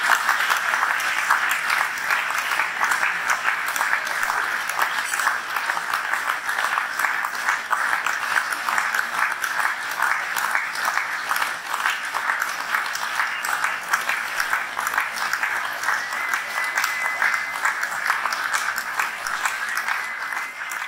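Audience applauding steadily. A faint high steady tone joins in over the clapping near the end.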